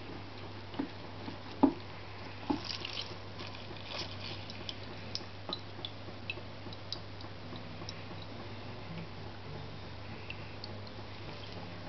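Kitchen handling sounds: a few soft knocks in the first couple of seconds, then scattered light clicks and clinks of dishes and utensils, over a steady low hum.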